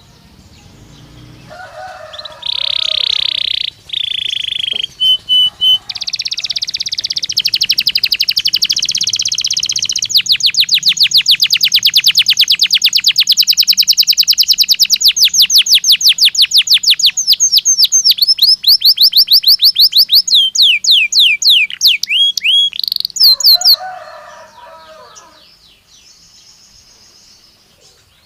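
Domestic canary singing a long song: a loud held note, then rolling trills leading into a long run of very fast repeated notes, ending in swooping notes before it falls quiet near the end.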